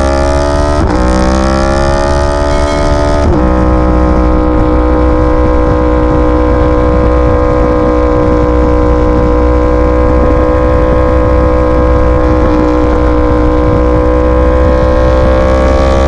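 Yamaha R1 sport bike's inline-four engine accelerating, its pitch climbing and dropping at two upshifts in the first few seconds, then holding a steady cruise before climbing again near the end. A constant low rumble, likely wind on the microphone, lies underneath.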